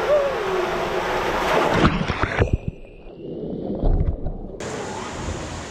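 Rushing, splashing water inside an enclosed tube water slide as a rider goes down it, then a heavy splash as she drops into the pool about two seconds in. The sound goes muffled, heard from underwater, for about two seconds before coming back clear.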